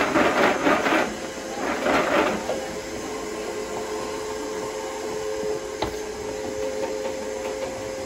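Beads clattering inside a wall-mounted plastic spinner toy as a small child turns its knob, in two bursts over the first couple of seconds. After that comes a steady two-tone hum with a single sharp click about six seconds in.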